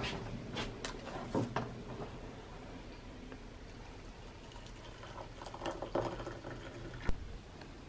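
Hot water poured from a Russell Hobbs electric kettle into a ceramic mug, a soft steady pouring hiss with clinks and knocks of handling. A single sharp knock comes near the end.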